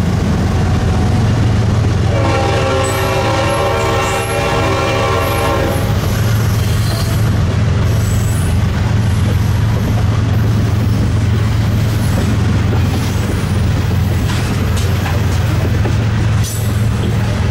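Freight train rolling by at close range: a steady low rumble of locomotive and steel wheels on rail, with clicks and light squeals from the wheels. About two seconds in, the lead GE locomotive's Leslie RS5T five-chime horn sounds one long blast of about four seconds from down the line.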